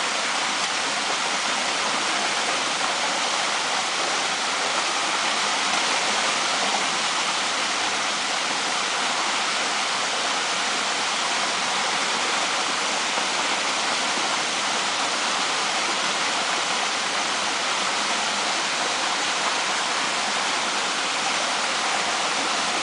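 Waterfall cascading into a pool: a steady, even rush of falling water.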